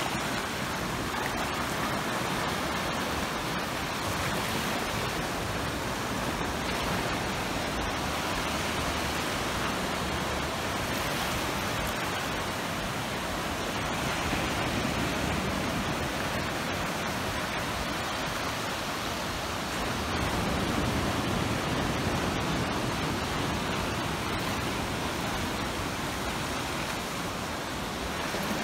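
Atlantic Ocean surf: a steady rush of waves washing over jetty rocks and breaking on the beach, swelling a little louder about halfway through and again about two-thirds of the way in.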